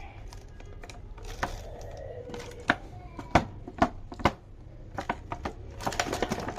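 Irregular sharp clicks and taps of toy packaging and a plastic toy car being handled, coming thicker near the end.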